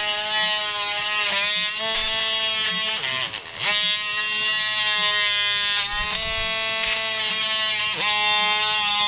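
A small electric power saw whines at high speed while cutting the plastic of a factory speaker mount. Its pitch sags and recovers several times as the blade bites into the plastic and the motor loads down.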